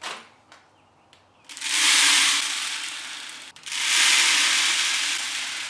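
Chicken feed poured from a plastic scoop into a plastic tube feeder: a few light clicks of the scoop, then two long pours of grain rattling into the feeder, each starting loud and fading off.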